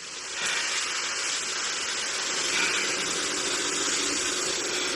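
A steady rushing hiss, like static or rushing air, that fades in within the first half second and then holds level.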